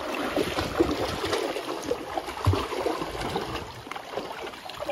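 Two Cane Corso dogs wading through shallow, muddy creek water, splashing and sloshing unevenly around their legs, with a couple of louder splashes about a second and two and a half seconds in.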